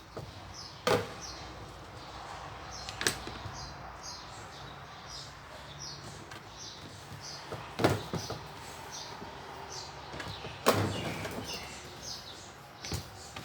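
Kitchen utensils knocking sharply five times at uneven intervals during food preparation, over a steady background hiss. A high chirp repeats over and over behind them.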